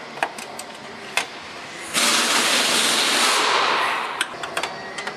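Light clicks and clinks of hand tools on metal parts in an engine bay, broken by a loud rushing hiss that starts suddenly about two seconds in and fades out after about two seconds.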